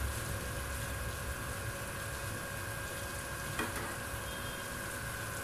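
Marinated chicken pieces frying in sunflower oil in a pan over a low flame: a steady, even sizzle, with a wooden spatula turning the pieces and one light knock about three and a half seconds in.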